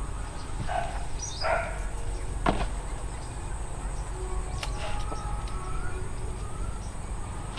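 Bunches of green bananas being handled on a styrofoam box: a few soft rustles and one sharp knock about two and a half seconds in. A small bird chirps once near the start, over a low steady outdoor hum.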